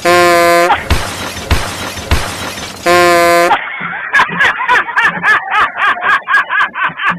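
A loud train horn blasts twice, each blast about two-thirds of a second long and steady in pitch, about three seconds apart, with a rough, crashing noise between them. About halfway through, a rhythmic music cue takes over.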